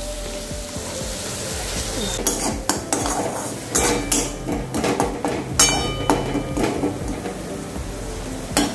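Spatula scraping and clinking against a kadai (wok) while stirring a ground tomato, onion, garlic and chilli paste frying in oil, with a low sizzle underneath. The scrapes come irregularly from about two seconds in.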